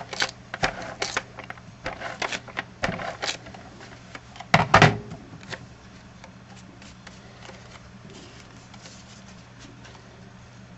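Adhesive tape being pulled off and pressed onto cardstock pieces, with paper being handled: a string of short, sharp crackles in the first half, the loudest a little before the middle, then only faint rustling.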